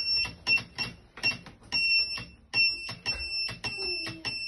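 Morse telegraph key tapped by hand, sounding a high-pitched electronic beep in a mix of short and long tones (dots and dashes), with a click of the key at each press.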